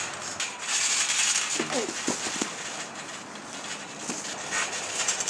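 Scuffling and crackling noise from people wrestling, with a short voice sound, like a grunt, about two seconds in.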